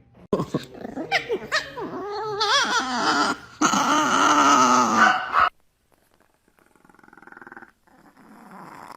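A dog vocalizing: a quick run of short calls rising and falling in pitch, then a long, loud, wavering call that cuts off suddenly about five and a half seconds in, followed by quieter sounds.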